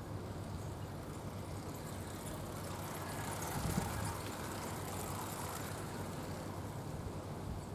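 Steady low outdoor rumble of road traffic, with a vehicle passing on the road, its noise swelling and fading a few seconds in.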